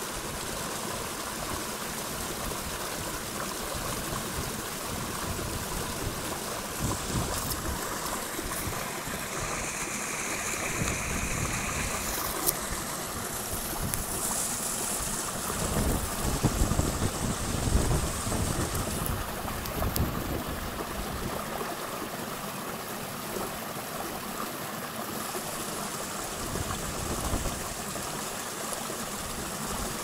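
Mountain river water running: a steady rushing, with a few louder low bumps about halfway through.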